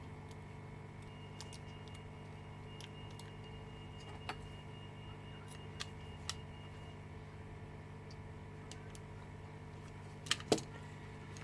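Faint scattered clicks of small parts being handled as an iPhone 6 logic board is connected to a test screen, with two sharper clicks near the end, over a steady electrical hum from the bench equipment.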